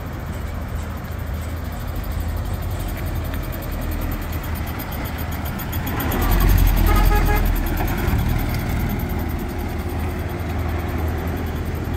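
Land Rover Series II driving past, its engine running steadily. The engine grows louder as the vehicle passes about six seconds in, then fades as it pulls away.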